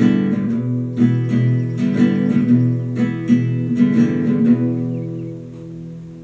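Acoustic guitar strummed in a steady rhythm, about two strums a second, then the last chord is left ringing and fades away from about four and a half seconds in.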